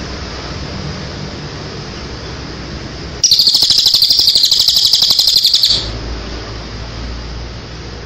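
A small songbird gives one loud, high-pitched, rapidly pulsed trill lasting about two and a half seconds, starting about three seconds in, over a steady low background hum.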